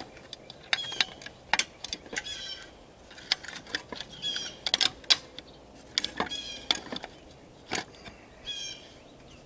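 Scattered light clicks and taps of metal parts being handled as a heating element is fitted into the sheet-metal base of a Lee Production Pot. A bird chirps in short phrases about every two seconds.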